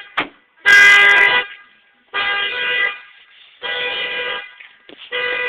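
Triggered car alarm honking the car's horn in a steady repeating pattern: short blasts of under a second, about one every second and a half, four in all, the last still sounding at the end.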